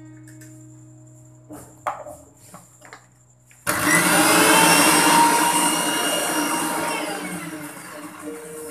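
A few clicks and knocks as the lid goes onto a mixer grinder's small steel jar. Then, about three and a half seconds in, the electric mixer grinder starts suddenly and runs loudly, churning a liquid egg mixture. It fades steadily as it winds down near the end.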